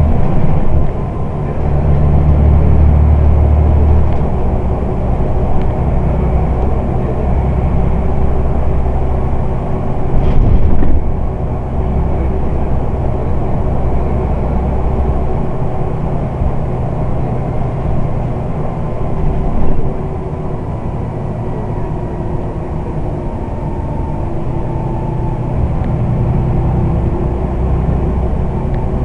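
Scania Omnidekka double-decker bus engine running, its low note swelling and easing as the bus pulls and slows. A short loud bump comes about ten seconds in.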